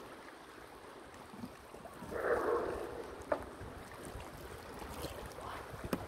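Sea water lapping against shoreline rocks, with a louder slosh about two seconds in and a single short click soon after.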